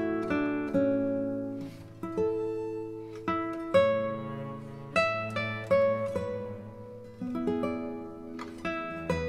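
Background music: a gentle melody picked note by note on a plucked string instrument such as an acoustic guitar, over held bass notes.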